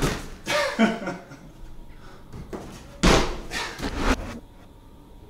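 Climber's body dropping onto a padded bouldering crash mat: several heavy thuds, the loudest about three seconds in.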